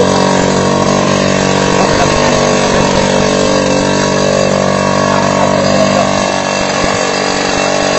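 Small motorcycle engine idling steadily, its pitch and loudness unchanging.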